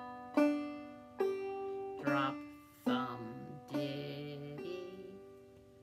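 Five-string banjo in open G tuning played clawhammer style, slowly and note by note, demonstrating a drop-thumb and ditty pattern. There are about five single plucked notes roughly a second apart, each ringing and fading before the next.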